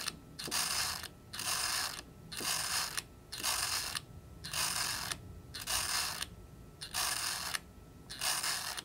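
Curta mechanical calculator's crank turned about ten times in a row, roughly one turn a second, each turn a short ratcheting whir of its gearing. These are subtracting turns in a long division, repeated until the counter overflows.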